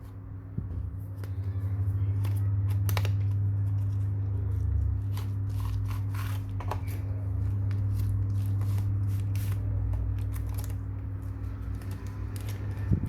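Steady low hum from an electrical repair appliance, with many light clicks, taps and scrapes of small tools working on a smartphone.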